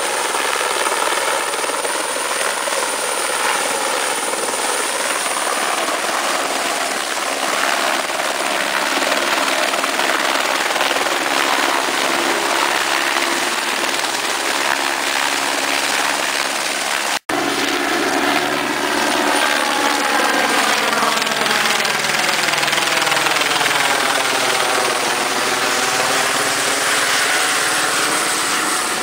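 Helicopter rotor and turbine engine running loud and steady, with a brief dropout a little past the middle.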